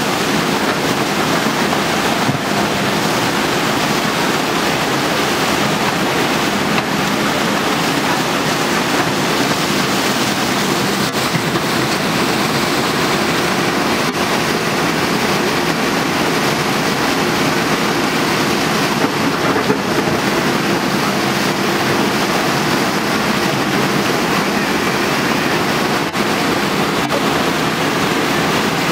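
Steady rush of muddy floodwater and rain, with the low, even hum of a JCB backhoe loader's diesel engine running under it.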